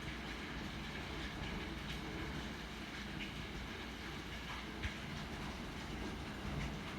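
Hailstorm: a steady rushing hiss over a low rumble, with a few sharp ticks in the middle part.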